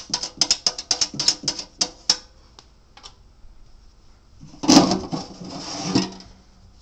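Metal burn pot of a Breckwell pellet stove rattling and clicking as it is worked loose, a quick run of knocks, then a scraping slide about four and a half seconds in as it is drawn out.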